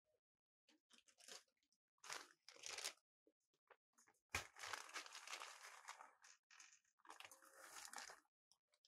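Dry crunching and crinkling, as of something being crumpled or torn by hand, in four spells. The longest lasts about two seconds and starts sharply just past the middle; the last ends shortly before the end.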